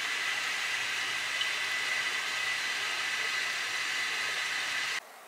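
Steady hiss with a faint, thin high whine running through it, cutting off abruptly near the end.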